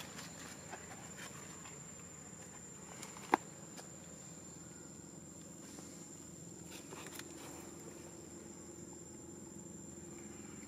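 A steady high-pitched insect drone over low background rumble, with one sharp click about three seconds in.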